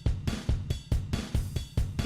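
Music with a driving drum beat, about four hits a second, with a heavy low thump on each hit.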